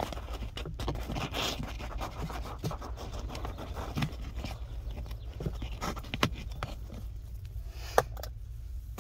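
A nearly empty can of expanding spray foam crackling and scraping as foam is pushed out through its straw nozzle, with the straw and can rubbing against paper-faced insulation. A steady low rumble sits underneath, and there is one sharp click about 8 seconds in.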